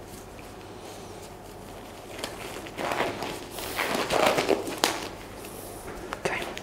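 Disposable examination gloves being pulled on and worked over the fingers: rubbery rustling and stretching starting about two seconds in, with a few sharp clicks.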